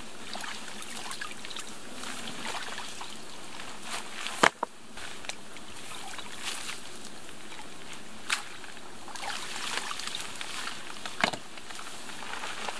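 Water sloshing and trickling as soggy dock boards are dragged out of shallow lake water, with about three sharp knocks of wood.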